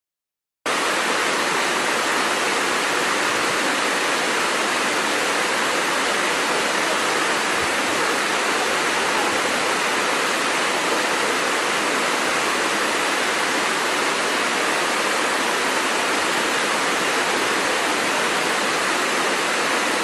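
Waterfall: a steady, even rush of falling water that cuts in suddenly just under a second in and holds unchanged.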